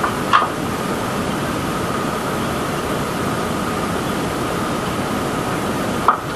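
Steady drone and rushing noise of a fishing trawler's engine and machinery, with two brief ticks, one just after the start and one near the end.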